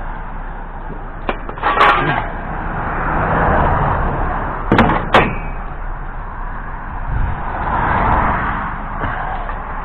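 Steady vehicle rumble that swells twice as traffic goes by, with a sharp knock about two seconds in and two more close together about five seconds in.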